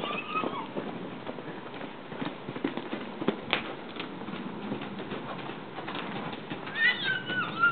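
Tennessee Walking Horse's hooves striking the dirt floor of a covered arena: an irregular series of soft hoofbeats as the horse is ridden past close by. Near the end a high, wavering animal call begins.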